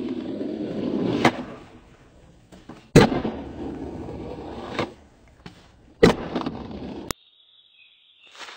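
AI-generated skateboard sounds made by Meta's MovieGen: urethane wheels rolling on concrete, with four sharp clacks of the board striking the ground and a ledge. The sound cuts off abruptly about seven seconds in, leaving near silence with a faint high tone.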